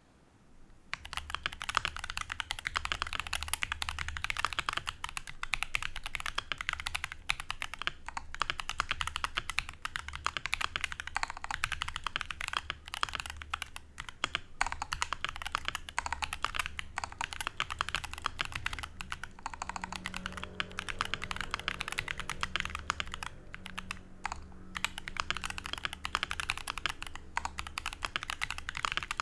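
Fast continuous typing on a HolyTom 980 mechanical keyboard with stock, unlubed Akko CS Ocean Blue switches and PBT double-shot keycaps: dense rapid key clicks starting about a second in, with a few brief pauses.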